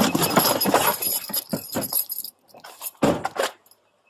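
Clattering movement noise on a body-worn camera microphone: a rapid run of knocks and rattles for about two seconds, then another short loud burst about three seconds in.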